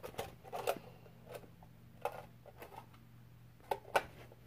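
Scattered light clicks and knocks of small objects being handled, with two sharper knocks near the end, over a faint steady hum.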